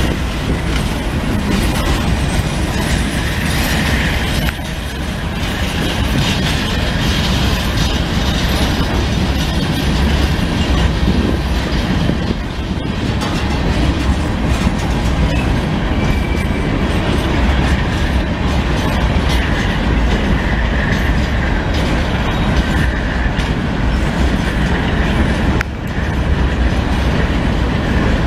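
Coal hopper cars of a freight train rolling past, their steel wheels rumbling and clattering steadily over the rails.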